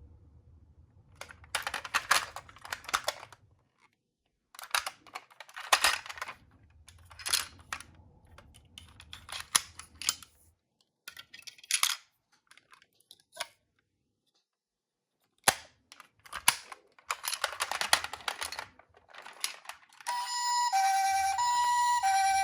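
Irregular bursts of clicking and rattling as a toy ambulance minicar is handled. About twenty seconds in, the toy's electronic two-tone siren starts, alternating between a high and a low note.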